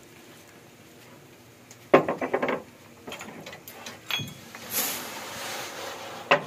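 Wheat grain pouring from a sack into the sheet-metal hopper of a small flour mill, a rushing hiss lasting about a second and a half near the end. Before it comes a quick cluster of knocks and clatters from the sack being handled, and one sharp knock closes it.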